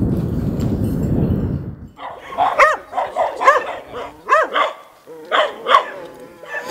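A steady low rumble, then from about two seconds in a dog barking about six times in short, separate barks.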